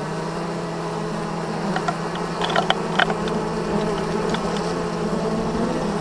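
Loud, steady buzzing of a mass of honeybees inside an opened hive, a colony disturbed by a honey harvest. A few short sharp clicks and taps sound about two to three seconds in.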